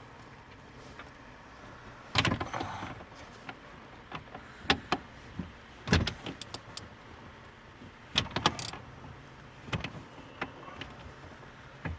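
Metal tools clicking and knocking as a socket wrench works a stubborn nut in a steering column, in short scattered clusters, the loudest about two, six and eight seconds in.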